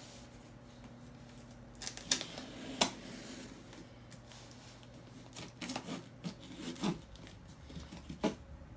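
Scissors cutting open a cardboard shipping package: scattered sharp snips and clicks, with a cluster of them in the middle, over a steady low hum from a tow truck outside.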